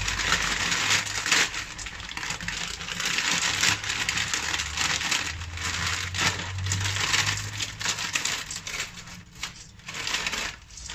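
Plastic noodle bag crinkling and dry pancit canton noodles crackling as they are pulled apart by hand and dropped into a wok of broth, a continuous busy rustle of small crackles.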